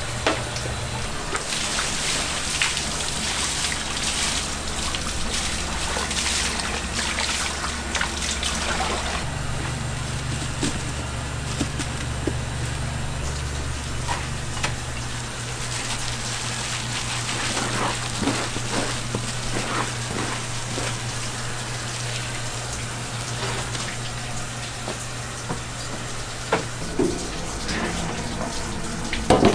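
Rice cake mill workroom machinery giving a steady low hum that shifts twice and fades near the end, under a hiss of running water and scattered clicks and knocks.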